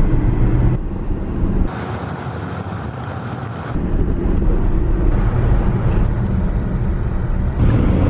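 Road and engine rumble with wind noise inside a moving car, changing abruptly a few times.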